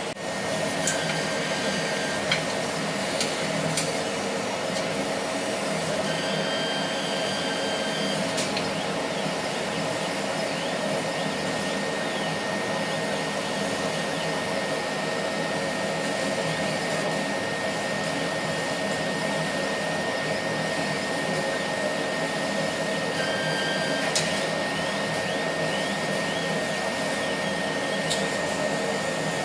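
CO2 laser cutter cutting, over the steady rush of its fans, with a thin, steady high-pitched whistle from the beam at the nozzle that comes in about a second in and holds. A few brief higher tones with clicks come and go over it. The owner ties the squeal to aged distilled cooling water and finds that changing the water cures it.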